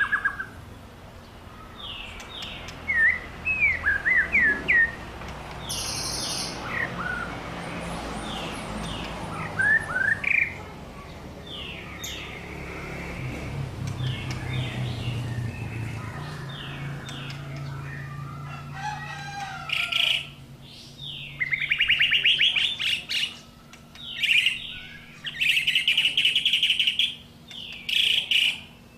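White-rumped shama (murai batu) singing: a run of short downward-sweeping whistled notes, then, in the second half, loud bursts of rapid chattering trills repeated with short pauses between them.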